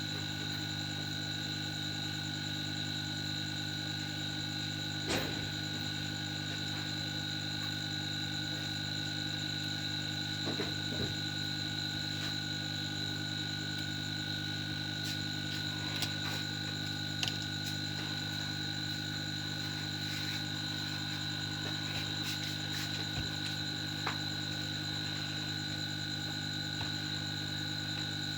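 Steady electrical hum with a high, even whine over it, unchanging throughout, broken by a few faint clicks.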